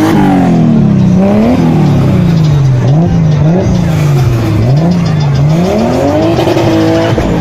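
Car engine being revved hard over and over, its pitch climbing and dropping about once a second.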